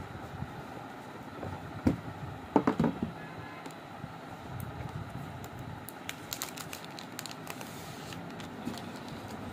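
Cardboard phone box being unboxed on a wooden table: a few knocks as the lid comes off and is set down, then light clicking and rustling as the phone is lifted out of its tray. A steady hum runs underneath.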